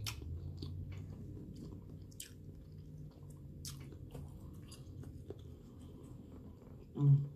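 Close-miked chewing of seasoned shrimp with the mouth closed: scattered soft wet clicks and smacks. A brief, louder voiced sound comes near the end.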